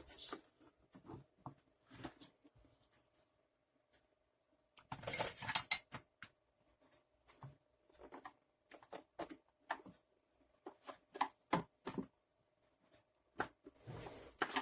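Plastic parts of a Hoover T2424 vacuum cleaner's housing being handled and tugged at during disassembly: scattered clicks and knocks, with a longer rattling scrape about five seconds in.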